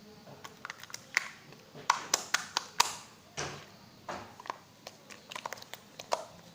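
Clear jelly slime being squeezed and played with in the hands, making irregular sharp pops and clicks, several in quick runs.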